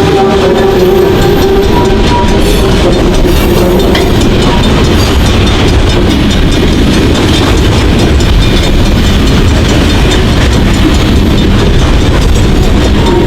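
CN freight train rolling past, a loud, steady rumble of wheels on the rails, with a steady tone in about the first two seconds.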